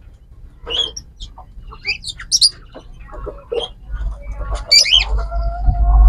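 Birds in an aviary calling: short scattered chirps and squawks, with one held note near the end and a low rumble building over the last couple of seconds.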